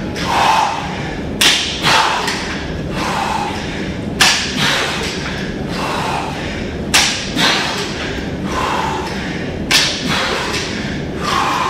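Sharp thumps coming in pairs about half a second apart, a pair roughly every three seconds, each followed by a short ringing tail.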